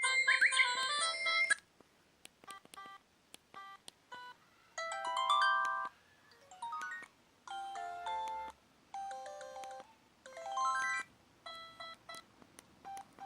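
Preloaded ringtones on a ZTE F866 mobile phone previewed one after another: a string of short electronic melody snippets, each stopping after a second or so before the next begins.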